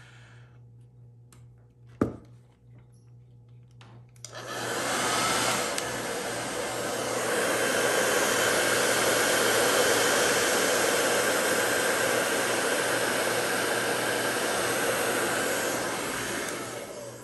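A click, then about four seconds in a hairdryer switches on and blows steadily, heating the back glass of a Samsung Galaxy S8 to soften its adhesive. It cuts off at the end.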